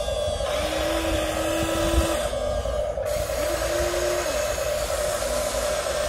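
Huina 1593 RC excavator's electric motors whining steadily as it lifts and swings a loaded bucket. A second, lower motor tone joins for about a second and a half, then again for about a second, and a small knock is heard about 2 s in.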